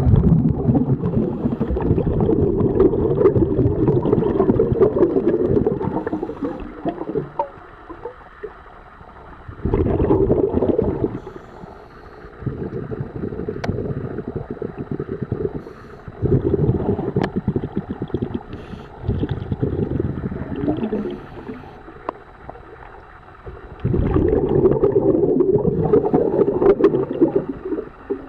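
Scuba diver's exhaled bubbles from the regulator heard underwater, a low gurgling rumble in bursts of a few seconds with quieter gaps between breaths, and a few faint ticks.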